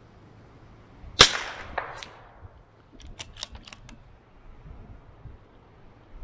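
A single shot from a .22 LR bolt-action rifle (CZ 457 MTR) about a second in, with an echo trailing off for about a second and two fainter knocks just after. About two seconds later comes a quick run of four or five sharp clicks.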